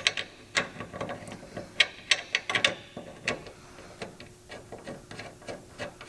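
Irregular metal clicks and clinks as the helper air bag's top mounting bracket and bolts are fitted by hand up against the truck frame. The clicks are louder and come more often in the first three seconds, then grow fainter.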